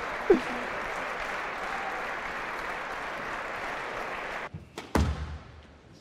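A large crowd applauding and cheering in a squash arena, with a brief shout near the start. The applause cuts off abruptly about four and a half seconds in, and a few sharp knocks from squash play follow.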